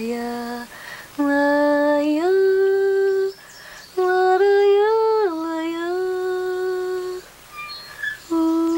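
Wordless female singing: slow phrases of long held notes, each phrase stepping up or down in pitch, with short pauses between phrases.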